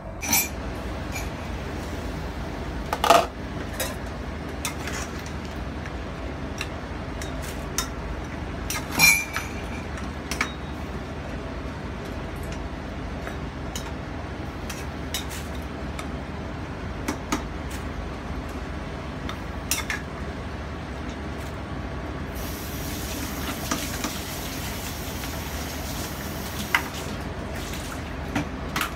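Metal spoon and spatula clinking and scraping against a steel cooking pot of stew while it is stirred, with scattered sharp clanks, the loudest about three and nine seconds in, over a steady low hum.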